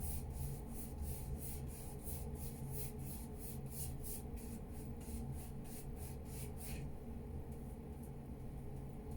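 Paintbrush dabbing paint onto a canvas in quick, even, scratchy strokes, about three or four a second, stopping about seven seconds in.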